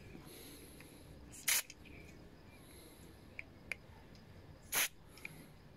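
Two short bursts of aerosol carburetor cleaner hissing through its spray straw into the carburetor's small passages, about three seconds apart, with a couple of faint clicks between.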